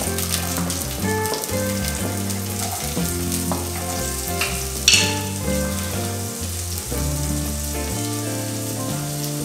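Chopped onions hitting hot oil in a pan and frying with a steady sizzle and crackle, with a wooden spatula scraping them off a plate into the pan. A brief, louder sizzle flares about five seconds in.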